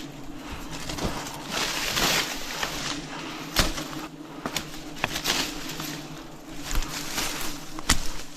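A swarm of wild bees humming steadily, with rustling and a few sharp knocks over it.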